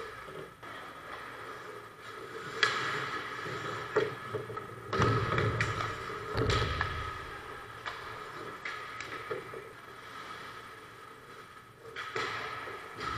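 Ice hockey play heard from behind the net: skate blades scraping the ice and sharp clacks of sticks and puck, with heavier thumps about five to seven seconds in as the goalie drops to the ice for a save.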